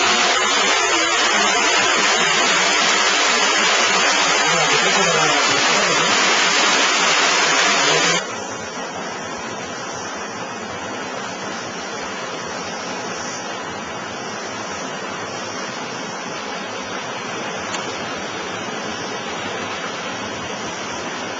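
Rushing water, a steady noise that drops suddenly to a quieter, softer rush about eight seconds in.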